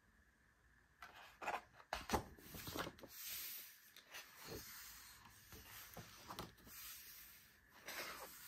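Thick photobook pages being turned by hand: paper rustling and sliding in irregular swells, starting about a second in.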